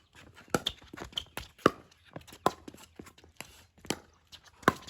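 Pickleball rally: the sharp pock of paddles striking the plastic ball, about five loud hits roughly a second apart, with fainter taps between.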